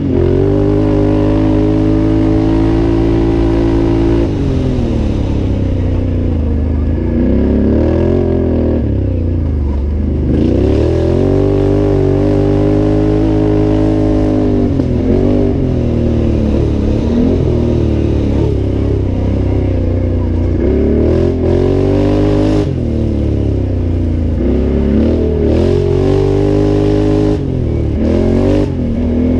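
ATV engine, a 2014 Can-Am Outlander 800's V-twin, racing hard and loud, its revs climbing and dropping again and again as the throttle is opened and closed.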